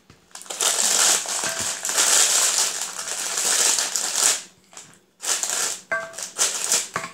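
Crinkling of a foil biscuit wrapper being handled as Marie biscuits are pulled out of the packet, in two long stretches with a short pause just before the last couple of seconds.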